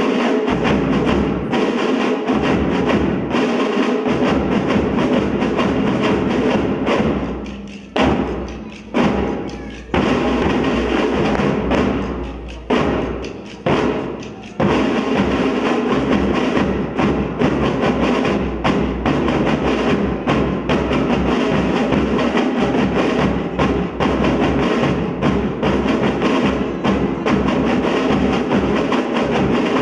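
Pipe band playing: bagpipes sounding over their steady drone, with drums beating. Between about 7 and 15 seconds the music breaks off briefly several times, each time coming back in on a sharp stroke.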